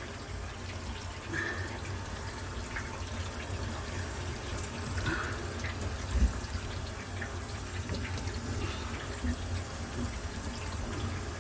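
Kitchen faucet running a steady stream of water while the cold-water shut-off valve under the sink is being turned closed, with a low thump about six seconds in.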